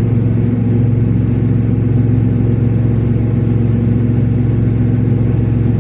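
Car engine and road noise heard from inside the cabin while driving at a steady speed: a steady low drone with no change.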